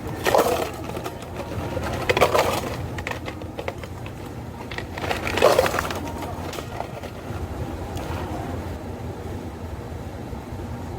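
Cafe counter work sounds: three short clatters, about two and three seconds apart, over a steady low hum.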